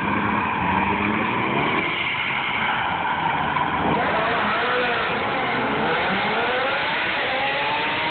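Drift car's engine revving up and down repeatedly as the car slides sideways through the turns, with tyre noise underneath.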